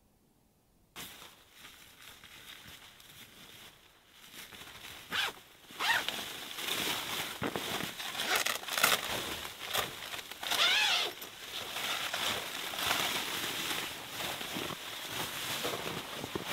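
Boots crunching through snow with the rustle of clothing and gear as a person moves about, starting suddenly about a second in and going on irregularly.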